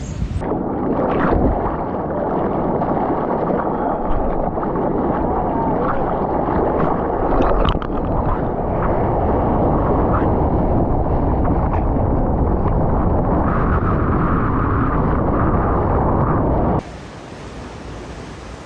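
Loud, muffled rush of surf water and wind noise on a waterproof camera housing, as on a wave ride. It cuts off suddenly near the end to a quieter ocean hiss.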